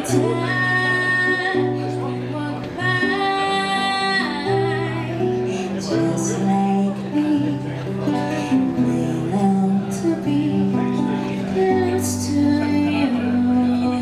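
A woman singing live into a microphone, accompanied by two acoustic guitars. She holds some notes for a second or more, over a plucked guitar bass line.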